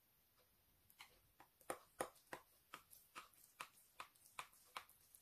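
Kitchen knife cutting through sticky rice cake in a ceramic baking dish, the blade tapping the bottom of the dish in a run of light clicks, about three a second, starting about a second in.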